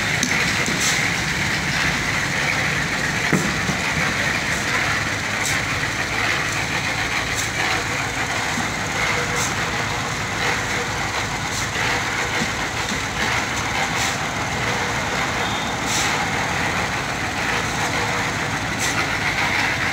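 Engine of a portable drum concrete mixer running steadily, with a light tick about every two seconds.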